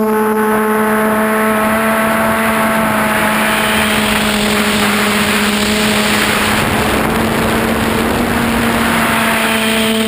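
QAV400 quadcopter's four brushless motors and two-blade props buzzing at a nearly steady pitch, heard from a camera mounted on the craft. A rushing wind noise swells through the middle and eases near the end.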